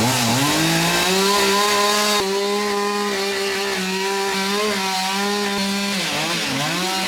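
Chainsaw engine revving up and held at high speed, its pitch dipping and wavering briefly near the end before climbing again.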